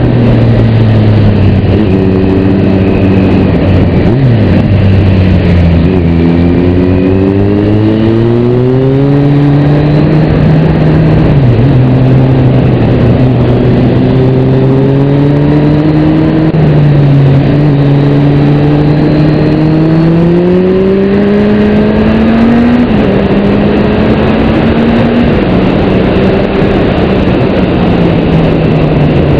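Motorcycle engine recorded on the bike itself while riding a winding road. Its pitch climbs under acceleration and drops away several times as the rider shifts and slows for bends, over a steady rush of wind noise.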